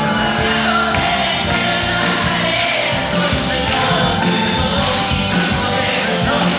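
Live band music with a man singing lead over guitars, bass and drums, heard loud and full from among the audience in a theatre.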